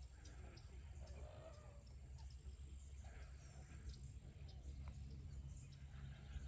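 Faint wild birds calling across the wetland: scattered short calls and chirps over a low, steady rumble.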